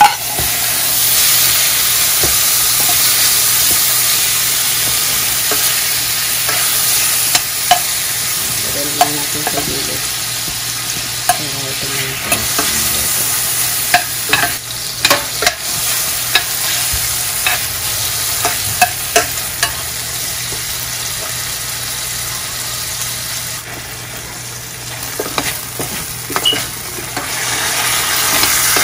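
Pork strips, red onion and garlic sizzling in a stainless steel frying pan as sliced tomatoes are added, the sizzle rising about a second in. A spoon scrapes and clicks against the pan again and again while everything is stirred.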